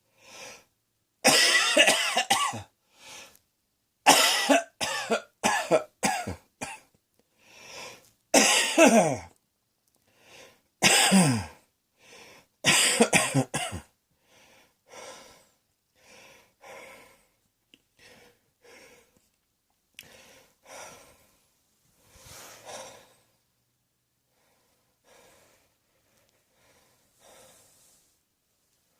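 A person coughing in repeated fits, several loud coughs in quick runs through the first half. Then quieter, more widely spaced coughs and breaths through the second half.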